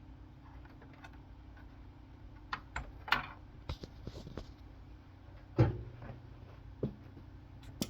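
Scattered sharp clicks and knocks of hardware being handled, with a heavier thud about five and a half seconds in, over a steady low electrical hum.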